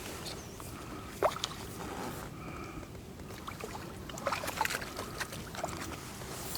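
Water splashing and sloshing as a hooked crucian carp is played to the bank and landed, with scattered small clicks and knocks and one sharper knock about a second in.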